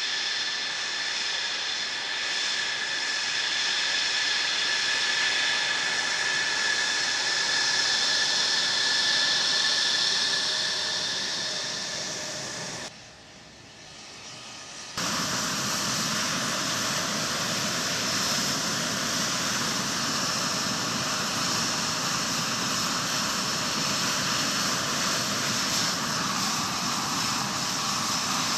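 F-16 fighter's jet engine running on the ramp: a steady turbine whine with several high tones over a rushing hiss as the jet taxies. About 13 seconds in it drops away for two seconds, then returns as a fuller, steady jet noise with a thin, very high whine.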